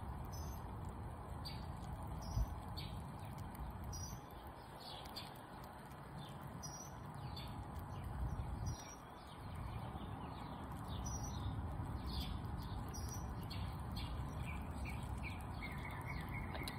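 Small birds chirping repeatedly in short high chirps, over a steady low background rumble, with one brief thump about two and a half seconds in.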